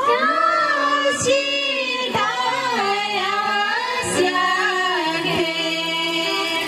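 Choir and congregation, mostly women's voices, singing a slow liturgical response at Mass, with held and gliding notes.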